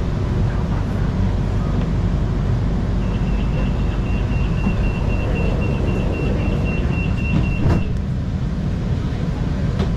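Door-closing warning beeps aboard a standing monorail car: a rapid run of evenly spaced high beeps for about five seconds, ending in a single thump as the doors shut. The car's steady ventilation and running rumble carries on underneath.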